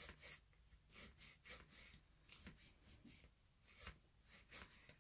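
Bone folder rubbing on cardstock, pressing a glued flap inside a paper box: a series of faint, short, irregular scraping strokes.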